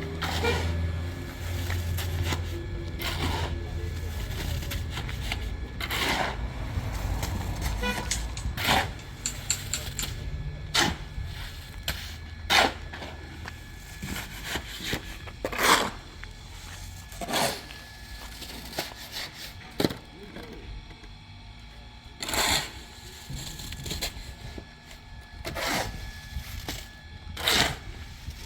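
A series of sharp, irregular knocks or strikes, about one every one to two seconds, over a low rumble during the first third.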